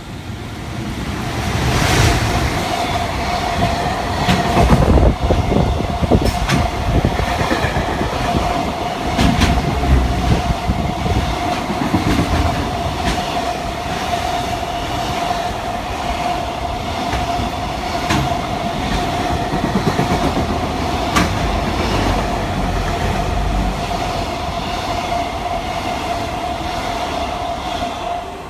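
EF210 electric locomotive hauling a long container freight train through at speed. The noise builds to its loudest as the locomotive passes about two seconds in, then the wagons' wheels keep up a steady din with clicks over the rail joints and a steady ringing tone. It drops off sharply near the end as the last wagon clears.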